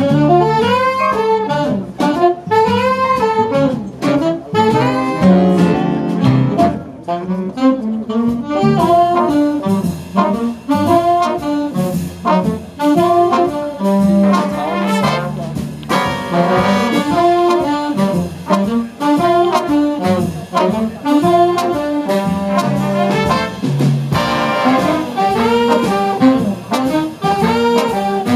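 Jazz big band playing an ensemble passage: a saxophone section with trumpets and trombones over upright double bass.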